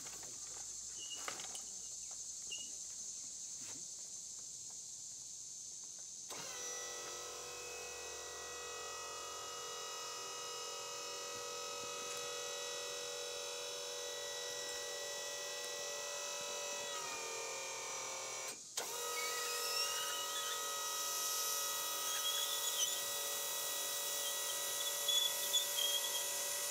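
Electric motor of a tractor's wheelchair-transfer seat lift running with a steady whine as it raises the seat. It starts about six seconds in, after a few light knocks, drops slightly in pitch and stops briefly about two-thirds of the way through, then runs again.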